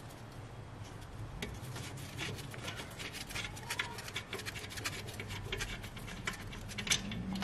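Gloved hands and tools working at a car alternator's mounting bolts: faint rubbing with light, irregular metallic clicks and taps, over a low steady hum.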